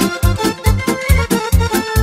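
Instrumental Romanian folk-pop music with an accordion over a steady bass-and-drum beat, about three beats a second.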